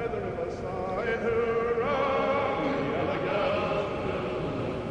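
Slowed-down, reverb-heavy early-1900s ballroom record, with a singing voice holding wavering, gliding notes over a murky, noisy low end.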